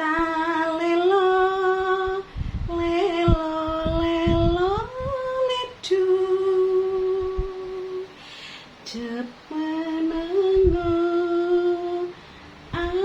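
A woman singing alone in long, held notes, with a slow glide upward about a third of the way in and short breaks between phrases.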